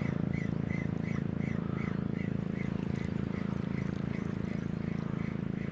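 Ryobi Maturity 3000 spinning reel cranked steadily to retrieve a lure: a continuous gear whirr with a faint high tick repeating about three times a second.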